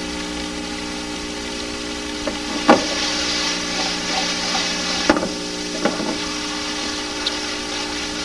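Food sizzling in frying pans on a stovetop, with a few short knocks and clinks of a bowl and utensils against the pans. The sizzle grows brighter about three seconds in and drops back about five seconds in. A steady electrical hum from the old tape runs underneath.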